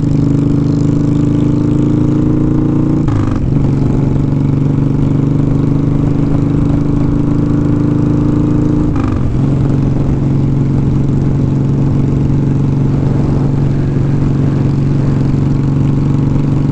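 1200cc motorcycle engine running under way, its pitch dropping briefly twice, about three seconds in and about nine seconds in, as gears are shifted. Wind buffets the helmet-cam microphone.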